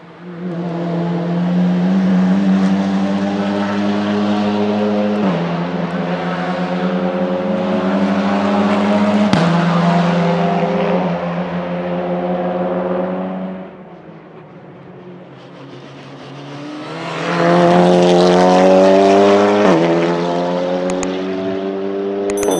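2020 Cupra Leon Competición TCR race cars' turbocharged 2.0-litre TSI four-cylinder engines accelerating hard, the pitch climbing in each gear and dropping sharply at each quick upshift of the sequential gearbox. One car pulls up through several gears, then after a quieter lull a second car accelerates with another upshift.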